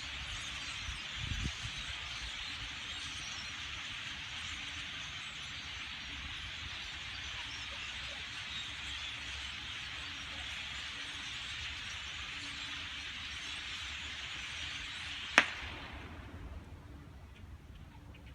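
A large flock of migrating birds chattering together in a dense, steady din. About fifteen seconds in comes a single sharp pop, and the chatter then dies away within a second or two as the flock takes flight.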